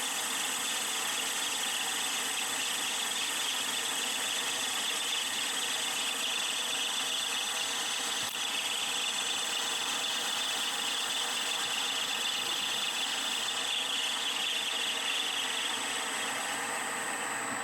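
Small metal lathe running steadily while machining brass stock, with a high cutting noise that drops away near the end. A single brief click about eight seconds in.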